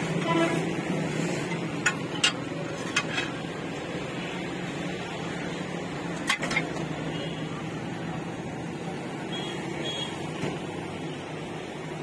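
A metal spoon clinking a few times against steel plates and ceramic sauce jars while chaat is served, over a steady background hum.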